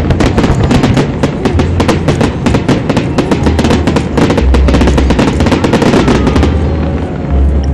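Aerial fireworks bursting overhead in a rapid, dense crackle of many pops a second over a deep low rumble. The crackle thins out after about six and a half seconds as the display dies down.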